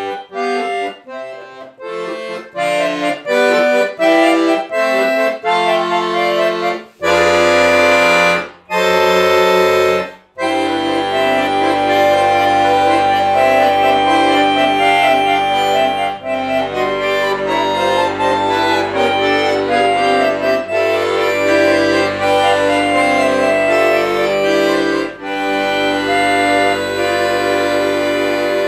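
Piano accordion playing a fugue. It opens with a run of short, separate notes, then plays two long full chords about seven and nine seconds in. From about ten seconds it moves into a dense passage of many moving notes over held bass notes.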